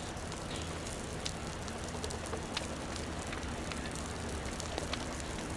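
Burning rubble and brush crackling, with scattered sharp pops and snaps, over a steady low rumble.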